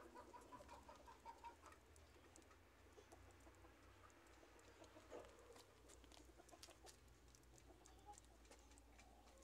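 Faint clucking of chickens, a run of short clucks in the first couple of seconds, with scattered light ticks later on.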